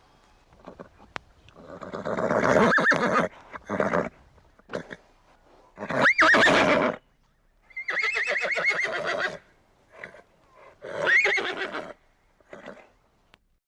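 A horse neighing four times, each call loud and pitched with a quavering, whinnying tremble, separated by short quiet gaps and a few brief, fainter sounds.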